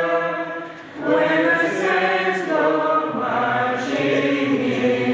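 Congregation singing a two-part hymn together, many voices holding long notes, with a short breath between phrases about a second in.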